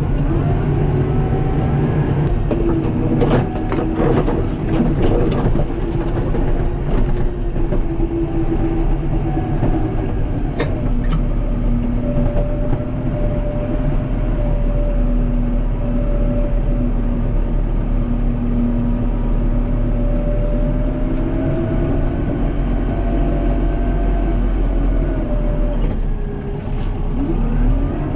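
Kubota M7060 tractor's four-cylinder diesel engine running under load while pushing snow, its pitch drifting slowly up and down with the revs. A few knocks come about three to five seconds in, and a sharp click about eleven seconds in.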